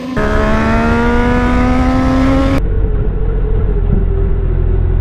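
Superbike engine revving high, its pitch climbing steadily as it accelerates. About halfway through it cuts to a lower, steadier engine rumble.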